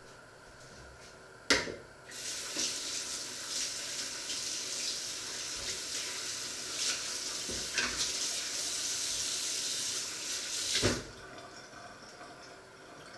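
Kitchen tap opened with a sharp clack, water running steadily into the sink for about nine seconds, then shut off with a knock.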